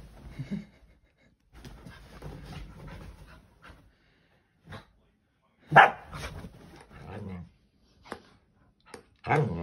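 Scottish terrier panting, with a few short sharp clacks of his jaws snapping shut and one loud bark just before the middle. Near the end he starts a long growling grumble whose pitch rises and falls.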